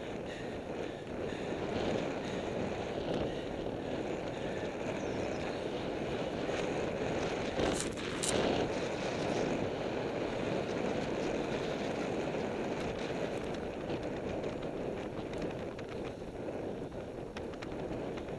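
Wind buffeting the microphone and tyre rush from a road bike riding at speed, a steady noisy roar. About eight seconds in there are two short sharp knocks close together, the loudest sounds here.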